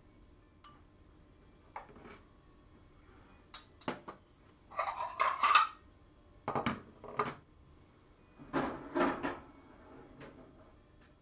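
Ceramic dishes clinking and clattering on a stainless steel countertop: a few light taps at first, then three louder bursts of clatter as stoneware plates are set down, near the middle and about two-thirds of the way in.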